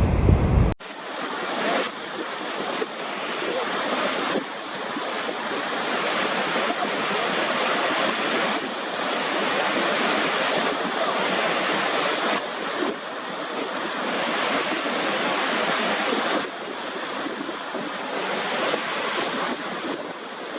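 Steady rushing of water from Niagara Falls, beginning abruptly about a second in, with small jumps in level where clips are joined.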